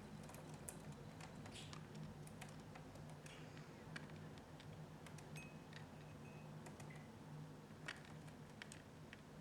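Faint, scattered light clicks and taps of budgerigars' claws and beaks on a table and a remote control, over a steady low room hum.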